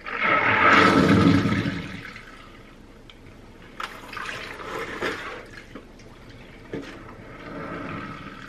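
Water running and splashing into a kitchen sink, loudest for about the first two seconds, then coming and going more quietly, with a few sharp clinks.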